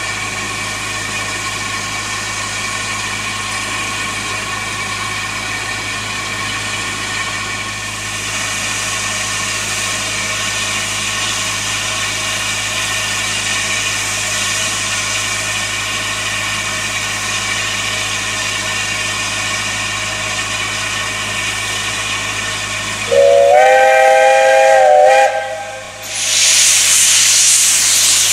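0-6-0T saddle tank steam locomotive standing in steam with a steady hiss. About twenty-three seconds in its whistle gives one chord-like blast of about two seconds. Then a loud rush of steam comes from the open cylinder drain cocks as it prepares to move off.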